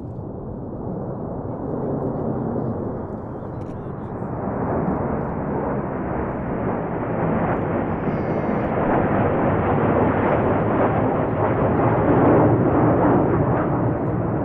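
A formation of Sukhoi Su-25 twin-turbojet attack jets flying over with a rushing jet roar. It builds steadily, brightening as they approach, and is loudest near the end.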